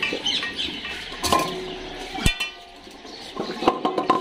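Stainless steel dog bowls knocking and ringing on a tiled floor as dogs eat from them: a sharp clang about two seconds in and a few more clinks near the end, each leaving a brief metallic ring.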